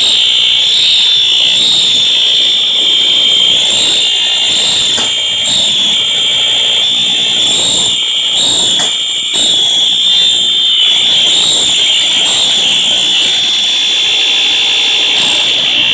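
Red fire alarm horn/strobe unit sounding a loud, continuous high-pitched electronic tone that holds steady and unbroken.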